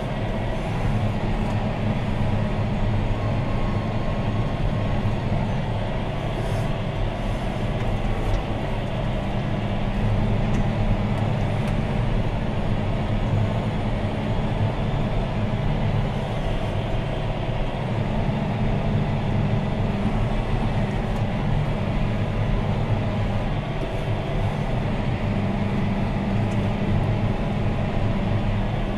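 John Deere 6215R tractor's six-cylinder diesel engine running steadily under load while pulling a plough, heard from inside the cab.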